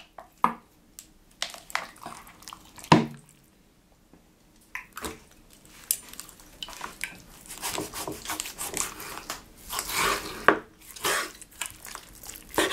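Large chef's knife slicing raw pork neck on a wooden cutting board: wet cutting with irregular clicks, taps and scrapes of the blade on the board, dense from about five seconds in. A single loud knock comes about three seconds in, after a few light clicks.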